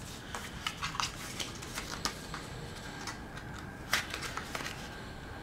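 Light scattered clicks and rustles of a small eyeshadow compact and its packaging being handled and opened, with sharper clicks about two seconds in and again about four seconds in.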